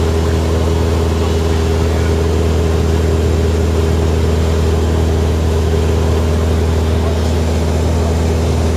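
Small plane's engine and propeller droning steadily in cruise, heard inside the cabin: a constant low hum with a steady stack of engine tones and no change in pitch.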